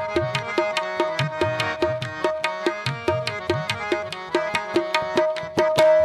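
Background instrumental music: a quick, even hand-drum rhythm with low strokes that bend upward in pitch, over a steady held drone.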